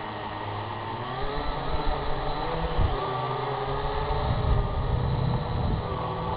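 Syma X8HG quadcopter's motors and propellers whining in flight, the pitch wavering up and down as the drone is steered, with a low rumble underneath.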